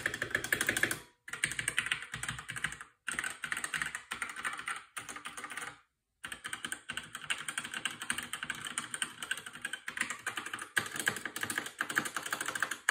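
Fast typing on an unmodded Logitech K845 mechanical keyboard with TTC Red linear switches: dense runs of keystrokes broken by short pauses, the longest about six seconds in.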